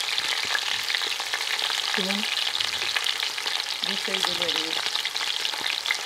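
Rolled, stuffed lamb shoulder searing in hot oil in a pot, a steady dense sizzle and crackle of frying.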